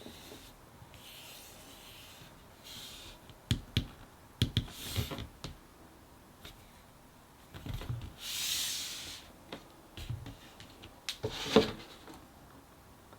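Thick cardboard jigsaw pieces being handled and set down: soft rubbing and sliding, scattered taps and clicks, a longer scrape about eight seconds in, and a louder knock near the end.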